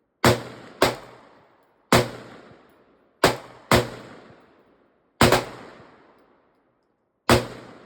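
Seven single gunshots fired at an uneven pace, two of them in quick pairs about half a second apart, each shot followed by an echo that dies away over about a second.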